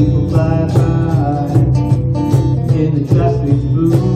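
Live acoustic band playing a song: strummed acoustic guitars keeping a steady rhythm over a full bass, with a melody line on top.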